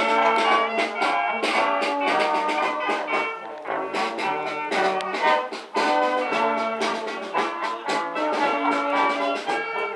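A small street brass band of trombones, trumpets, French horn and saxophones playing a tune live, backed by a drum kit keeping a steady beat.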